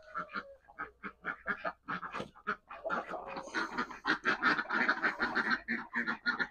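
Ducks quacking in a rapid run of short calls, growing busier after the first few seconds.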